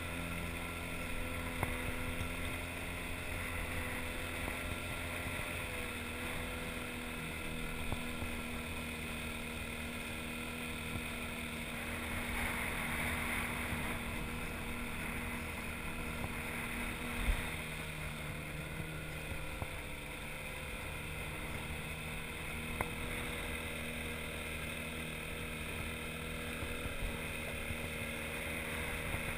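Small outboard motor on an inflatable boat running steadily under way, its pitch shifting slightly a couple of times.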